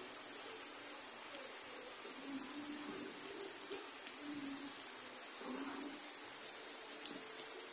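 Evening rain falling as a steady hiss, under a continuous high-pitched insect drone, with faint low wavering calls in the background and a single tick near the end.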